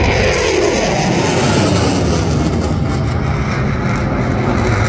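A Eurofighter Typhoon's twin EJ200 jet engines running in afterburner as the jet climbs away: a loud, steady roar with a heavy low rumble, dropping in pitch over about the first second.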